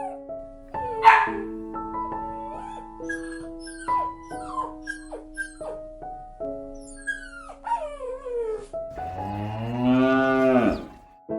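Light background music with sustained notes, a single dog bark about a second in, and near the end one long cow moo that rises and then falls in pitch, the loudest sound.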